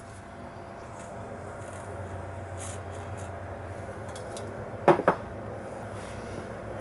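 Light rubbing and small clicks of handling, with two sharp clicks in quick succession about five seconds in, over a low steady rumble.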